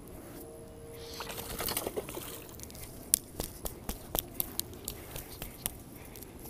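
Fly rod and line being handled while a hooked peacock bass is played at the bank: a brief rustling swish about a second and a half in, then a scatter of sharp clicks and light rustles.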